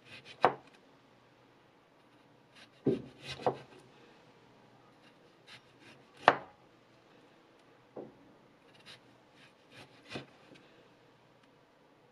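XITUO VG10 Damascus-steel chef's knife slicing an orange into rounds on a wooden cutting board. Each stroke is a faint scrape through the peel, then a knock as the edge meets the board, about six times at irregular intervals. The loudest knocks come about half a second in and about six seconds in.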